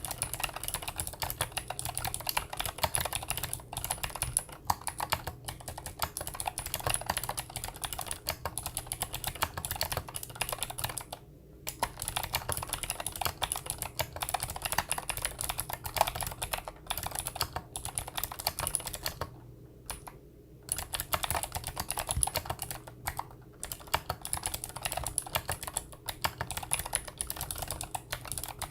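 Fast, continuous typing on a Monstargear Ninja87 tenkeyless mechanical keyboard with clicky Gateron Blue switches: a dense run of key clicks, broken by brief pauses about 11 seconds in and about 20 seconds in.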